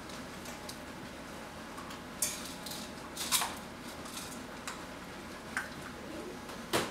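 Scattered sharp clicks and clinks, about five, as Vizsla puppies move about their pen, over a steady low hum.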